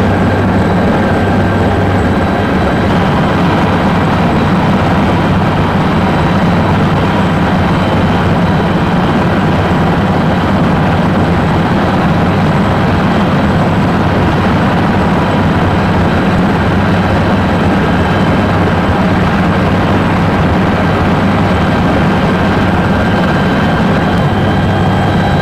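Helicopter in flight, heard from inside the cabin: a loud, steady drone of engine and rotor with a thin, steady high whine over it.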